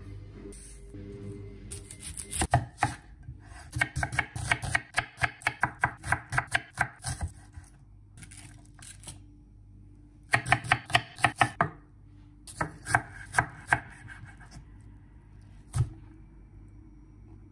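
Chef's knife chopping an onion on a wooden cutting board. It comes in three quick runs of knocks, about five or six a second, with short pauses between them, and one last single knock near the end.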